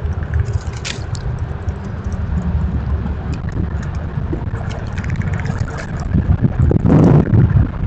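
Low rumbling noise on the microphone, broken by a few clicks and then louder scraping and rustling bursts near the end, as gray squirrels scrabble right against the camera.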